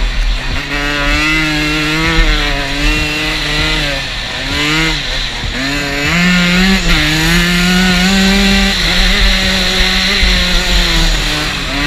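Dirt bike engine running hard under load through sand, its pitch climbing and dropping several times as the throttle is worked.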